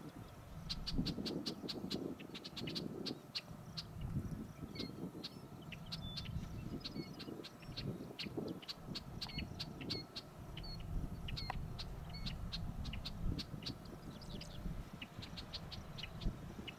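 Many short, high bird chirps in quick runs, over a low, uneven rumble.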